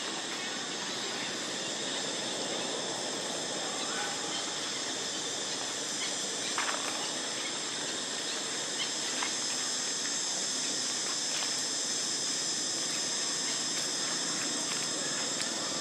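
Steady outdoor insect chorus, a constant high-pitched hiss, with a few faint clicks now and then.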